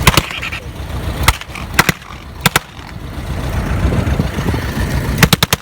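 Replica Browning machine gun, a non-firing noisemaker, letting off short bursts of sharp bangs: two at the start, one, a pair, another pair, then a rapid string of four near the end. A vehicle engine idles underneath.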